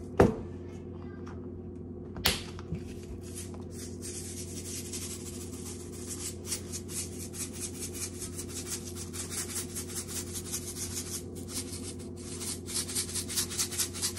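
Salt grinder being twisted to grind coarse salt: two knocks near the start, then from about four seconds in a fast run of short, scratchy grinding strokes that grow louder near the end. A steady low hum runs underneath.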